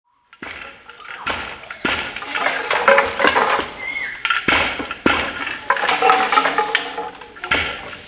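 Wooden hand loom of Tai weavers in use: its wooden parts knocking and clattering, with sharp knocks at uneven intervals about a second apart and lighter clinks between them.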